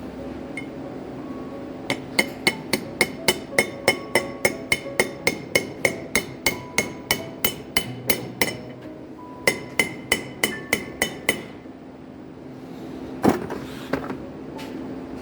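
A hammer tapping on metal: sharp, ringing strikes at about three a second in two runs, then one heavier blow near the end, over a low steady hum.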